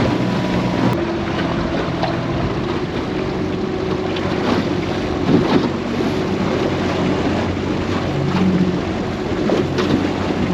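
Outboard motor of a small aluminium tinny running steadily at trolling speed, its note shifting slightly about a second in, with water rushing past the hull and wind buffeting the microphone.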